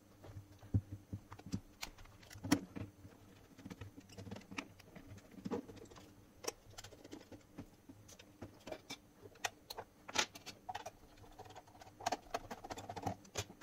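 Scattered small clicks and taps of a plastic multimeter case being handled on a wooden desk while its back screws are undone with a screwdriver, with a faint scraping about ten seconds in.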